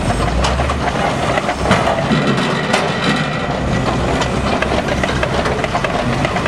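Sawmill log-sorting line running: a steady machinery rumble with frequent knocks and clatter of logs moving along the conveyor.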